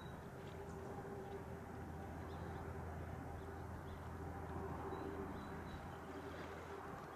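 Faint outdoor background: a steady low hum with a few short, faint, high bird chirps.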